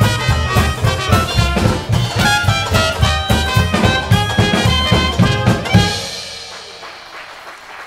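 Traditional jazz band of clarinet, trumpet, banjo, double bass and drum kit playing the last bars of a swing number live, ending on a final loud hit about six seconds in that rings out and fades.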